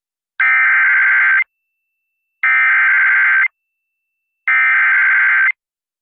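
Emergency Alert System SAME header: three bursts of digital data tones, each about a second long and a second apart, marking the start of a severe thunderstorm warning broadcast over FM radio.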